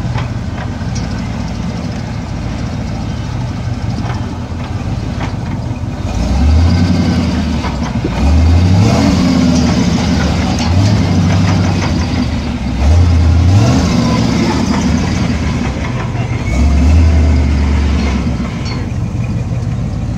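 Off-road 4x4's engine running at low trail speed. From about six seconds in it revs up in several short rising bursts, then eases back near the end, with scattered knocks and rattles from the vehicle on the rough track.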